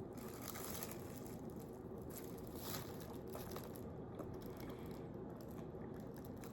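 Faint chewing of a mouthful of pizza, soft and irregular over a low steady room hum.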